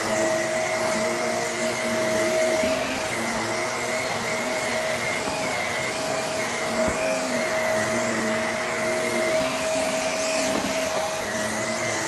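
Upright vacuum cleaner running steadily while being pushed over a rug: a constant whine over an airy roar, with a lower hum that wavers.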